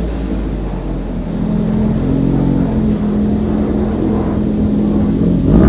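Ford Focus ST's turbocharged EcoBoost four-cylinder heard from the exhaust end, running at a steady idle, then blipped in one quick sharp rev near the end.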